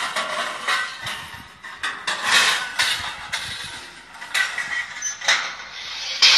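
Steel scaffolding frames and pipes clanking and rattling irregularly as they are handled and fitted together.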